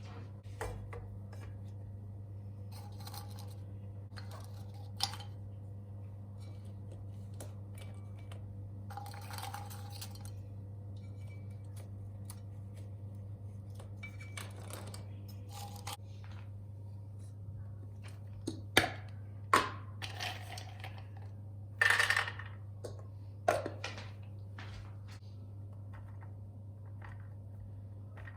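Small hard household objects being handled: scattered light clicks, taps and clinks, with a louder run of knocks and clinks about two-thirds of the way through. A steady low hum sits underneath.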